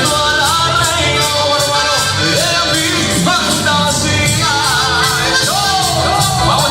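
Band music with a singer carrying a wavering melody over a steady beat.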